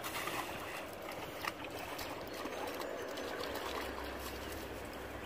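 Shallow water splashing and sloshing as a dog wades and lunges at the edge of a pond, with a few sharper splashes in the first two seconds.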